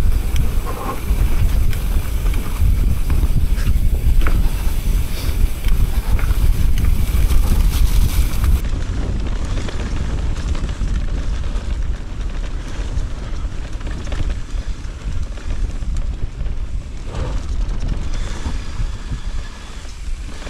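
Wind rushing and buffeting over an action camera's microphone on a mountain bike riding fast down a grassy slope, a heavy, uneven low rumble with the ride's tyre noise under it. About eight seconds in, the high hiss drops away suddenly.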